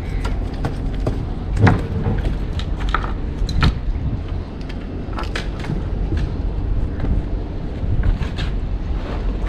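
Scattered sharp knocks and clicks, about half a dozen, from fishing rods and reels being handled in a small wooden boat, over a steady low rumble.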